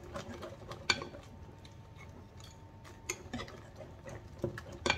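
Wire whisk mixing a thick tuna-and-egg batter in a glass bowl, the wires clicking and tapping irregularly against the glass, with a few sharper clicks about a second in, around three seconds and near the end.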